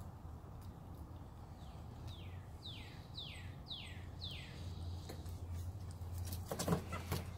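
A bird singing a quick run of about six downward-slurred whistles, roughly two a second. Near the end comes a louder burst of rustling and knocks from movement in the pen.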